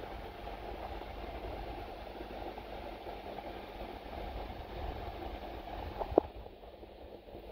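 Underwater sound of a koi pond: a steady churning rumble of circulating water with a constant low electric hum, typical of a running pond pump, and one sharp click about six seconds in.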